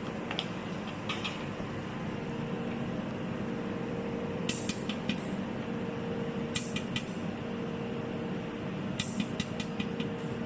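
Bench-top pulsed jewellery laser welder firing in short runs of sharp clicks, a click for each laser pulse striking the metal, over the steady hum of the machine's air-cooling fan. About five runs of two to five clicks are spread through.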